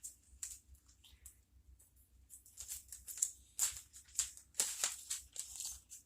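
Scissors snipping and plastic bag crinkling in quick, irregular clicks and crackles, in sped-up footage of cutting up a plastic bag.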